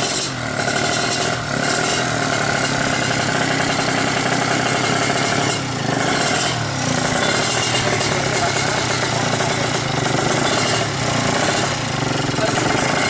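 Kawasaki Ninja two-stroke drag-bike engine with an expansion-chamber exhaust running loudly on its first start with a new tune, its pitch wavering with throttle and dipping briefly a few times.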